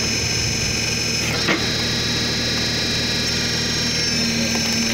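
Tractor-driven hydraulic wood splitter running steadily, a droning hum with a high whine, with one sharp crack about a second and a half in. The low hum grows stronger about four seconds in.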